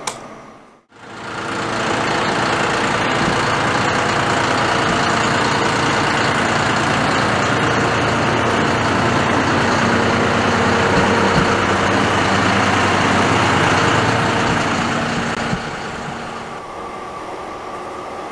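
Farm tractor engine running steadily at idle, dropping to a quieter hum near the end.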